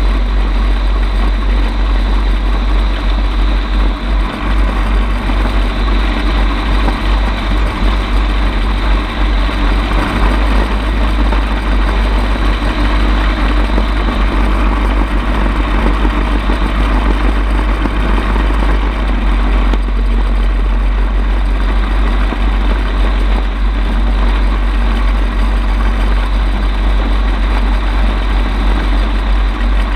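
Bensen gyrocopter's engine and propeller running steadily in flight, heard from an on-board camera: a constant low rumble under a dense rushing noise, with no change in engine speed.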